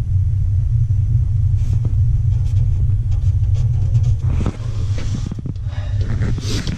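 Steady, loud low rumble, with light clicks and rustling from about four seconds in.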